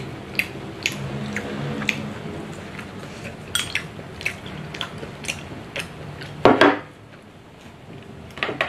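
Chopsticks clicking and scraping against a small ceramic rice bowl during eating, with one louder clatter about two thirds of the way in.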